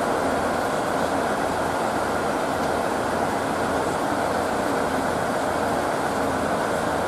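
Steam locomotive D51 498 drawing a train of old-type coaches slowly toward the station: a steady rushing rumble with no distinct beats.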